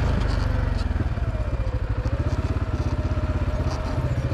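ATV engine running steadily with an even pulsing beat, and a faint whine that wavers in pitch alongside it.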